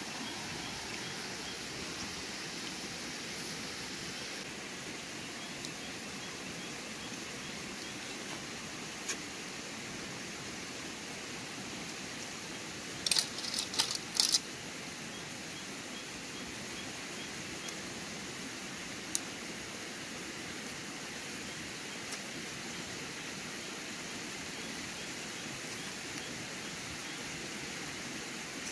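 Steady rush of stream water. About halfway through, a metal spoon clinks and scrapes several times against a metal cooking pot of snails in broth.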